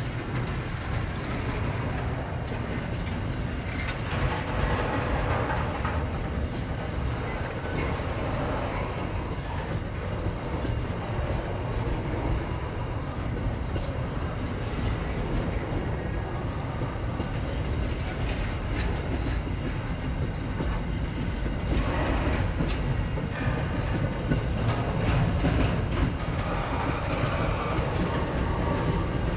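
Double-stacked container wagons of a long freight train rolling past: a steady low rumble of wheels on rail, with scattered clicks and clatter. It grows louder for a few seconds about four seconds in and again about 22 seconds in.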